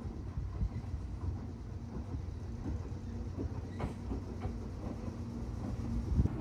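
Train running: a steady low rumble with a faint steady hum and scattered knocks, a sharp one about four seconds in and a louder thump near the end.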